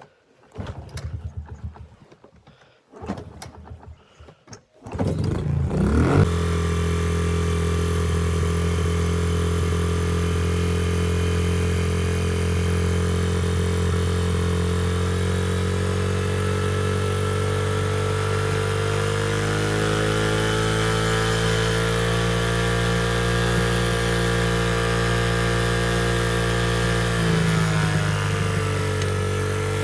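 A 2009 Honda CRF50F pit bike's small single-cylinder four-stroke engine: a few brief sounds, then the engine catches about five seconds in and runs steadily. Its pitch shifts a little around twenty seconds in and again near the end.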